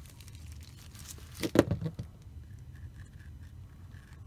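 Gloved hands handling a dismantled spinning reel and an oil bottle: thin plastic gloves rustling, with a short cluster of knocks and clatter about a second and a half in, over a low steady hum.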